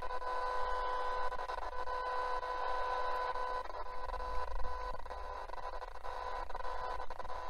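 Pobnze F170 portable radio's speaker on shortwave while tuning around the 14 MHz band: a steady whine of interference tones over static hiss, with no station coming through. The owner suspects the noise is electrical interference radiated from the recording area, since a second shortwave radio picks up the same noise.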